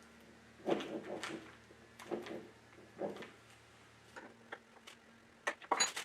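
Small restored metal vise hardware being rubbed with wax and handled: a series of short scrapes and light knocks about once a second, with a quick run of sharper clicks near the end.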